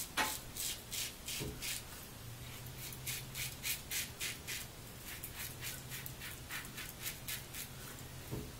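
Feather Popular double-edge safety razor with a Zorrik stainless blade scraping through lathered stubble on the neck in short, quick strokes, about two to three a second, each a brief crisp scratch.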